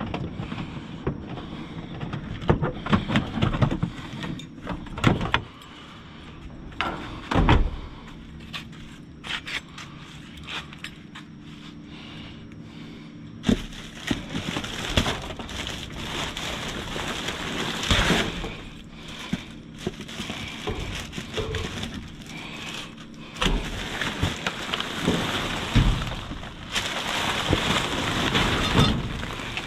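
Rummaging through a dumpster: plastic bags and packaging rustling and crinkling, with irregular knocks and clatter of things being moved about. The crinkling grows denser about halfway through.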